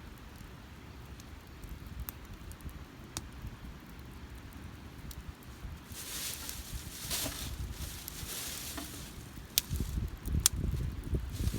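Wood campfire crackling, with scattered small snaps, a spell of hissing in the middle and two sharp pops about ten seconds in. Low thuds near the end.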